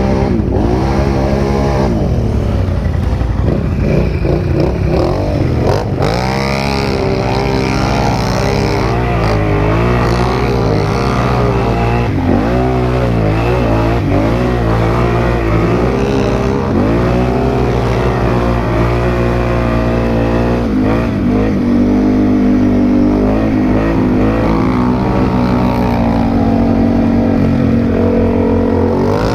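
Can-Am ATV engine revving up and down over and over under heavy load while churning through thick mud.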